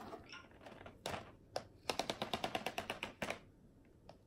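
Several short runs of quick, small plastic clicks and ticks from a pack of Sharpie markers being handled.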